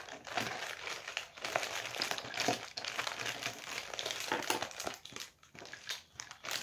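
Clear plastic bag crinkling and rustling as a hand rummages through the small glitter pots inside it, growing quieter and more broken over the last couple of seconds.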